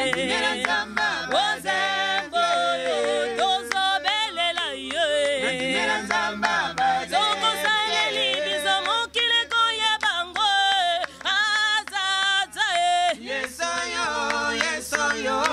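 A mixed group of male and female voices singing an a cappella Congolese gospel song in Lingala, in harmony, with a few hand claps.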